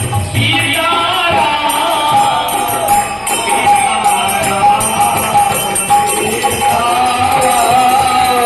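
Devotional kirtan music: a harmonium melody with jingling hand percussion keeping a steady beat.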